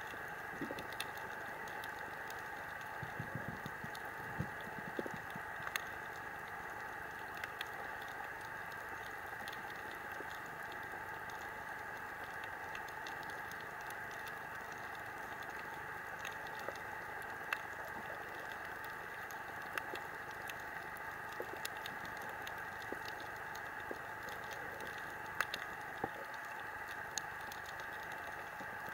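Underwater coral reef ambience: a steady hiss sprinkled with irregular sharp clicks and crackles, the typical crackle of snapping shrimp. There are a few soft low knocks a few seconds in.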